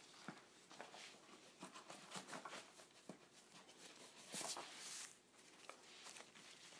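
Faint rustling and small clicks of a backpack's fabric, straps and buckles being handled as it is put on, with a longer swish about four and a half seconds in.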